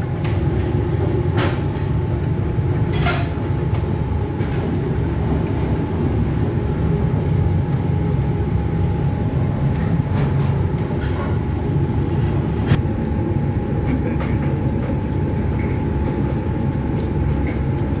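Steady machinery rumble with a constant whine above it and a few scattered sharp clicks and knocks.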